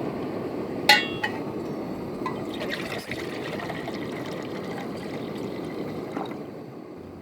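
Water being poured into a cooking pot, with a sharp metallic clink about a second in; the pouring tails off near the end.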